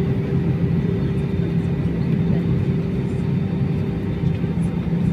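Airbus A320-214 airliner during pushback: a steady low rumble and hum, with a few faint constant whining tones above it.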